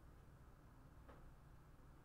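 Near silence: room tone with a faint low hum, and one faint click about a second in.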